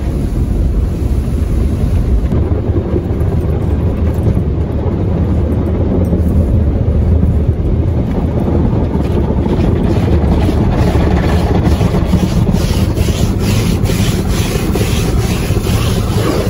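Automatic car wash heard from inside the car: a loud, steady rumble of the wash machinery and water on the body. From about halfway through, a rhythmic slapping of brushes or cloth strips sweeping against the car repeats a few times a second.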